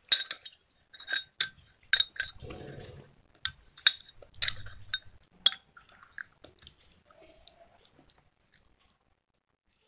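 A spoon clinking and scraping against a stemmed glass as paste is scooped from it: about a dozen sharp, ringing clinks over the first five or six seconds, with a short soft rustle in between, then tapering off to faint ticks.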